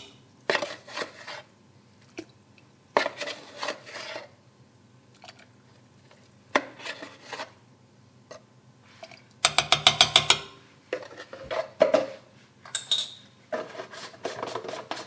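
A measuring spoon scraping soda out of a plastic tub and tipping it into a steel pot of water: a series of separate scrapes and light clinks. About ten seconds in comes a quick rattle of about eight sharp clicks.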